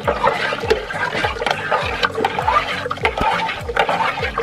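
Milk sloshing and swirling in a metal pot as a bare hand stirs rennet into it to start curdling it for cheese, with a busy run of short splashing gurgles.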